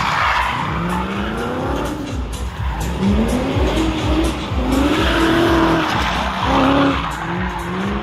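Car engine revving up and down again and again while drifting, over the hiss and squeal of sliding tyres.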